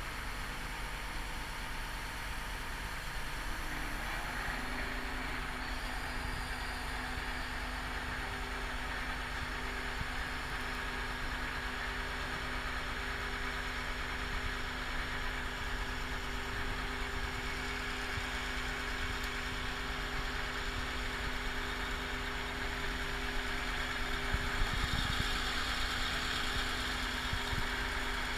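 Crane engine running steadily while the crane hoists on its hook, with a steady hum that sets in a few seconds in and holds.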